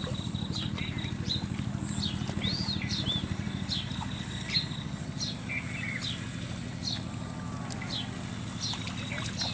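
Birds chirping in short, repeated notes over a steady low motor-like hum and a faint high steady whine.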